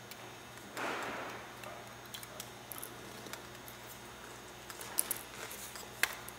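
Faint handling noise of small plastic model-rocket parts: a soft rustle about a second in, then scattered light clicks and taps, the sharpest two near the end.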